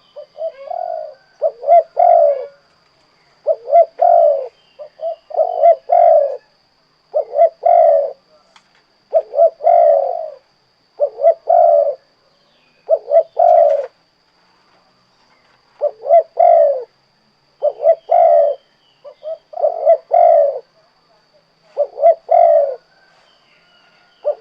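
A spotted dove (tekukur) cooing in its 'kuk 2' song, short hooting phrases repeated about every one and a half to two seconds, with a longer pause about two thirds of the way through.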